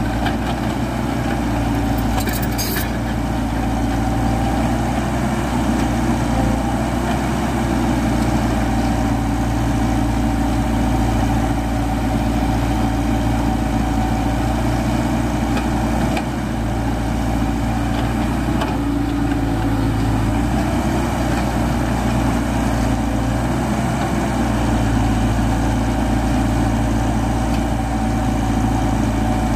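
JCB JS140 14-tonne tracked excavator's diesel engine running steadily while the boom and bucket work, its pitch wavering slightly under hydraulic load. A few brief light knocks, the clearest about two and a half seconds in.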